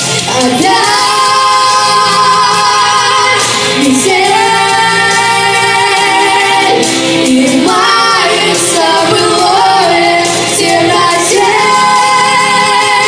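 A Russian pop song: female vocals sing long held notes, sliding between pitches, over a steady backing track.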